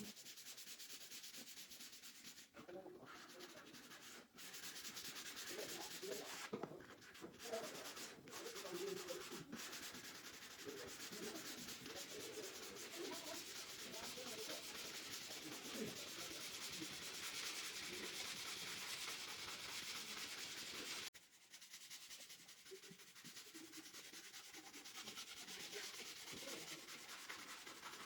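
Sandpaper rubbing on wood: a continuous rough scratching hiss with a few brief pauses, dropping quieter about three quarters of the way through.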